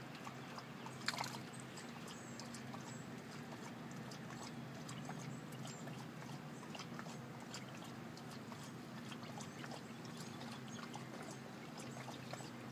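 Shallow water lapping and trickling softly around a wading dog, with scattered small ticks and one sharper click about a second in. A faint steady low hum runs underneath.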